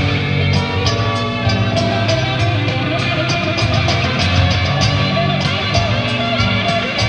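Jazz-rock fusion band playing live: electric guitar, electric bass, keyboards and drums together, with steady drum and cymbal strikes under the sustained guitar and keyboard notes.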